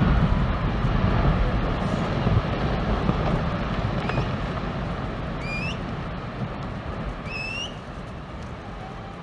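Glacier calving: a section of the ice face collapses into the lagoon with a deep rumble that is loudest at first and fades away over several seconds. A few short, high rising calls sound near the middle.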